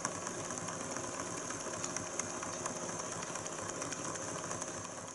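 Small BangGood model Stirling engine with a vertical crankshaft, running steadily: an even, fast mechanical clatter from its moving parts, with a few sharper clicks.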